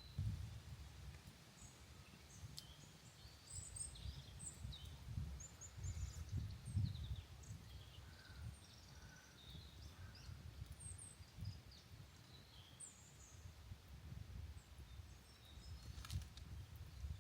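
Forest ambience: many small birds chirping and calling in short high notes, over a faint, uneven low rumble. A few sharp clicks come near the end.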